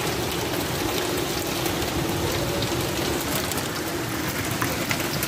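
Heavy rain falling steadily on corrugated tin and plastic roofing, with scattered sharp ticks of drops striking the sheets.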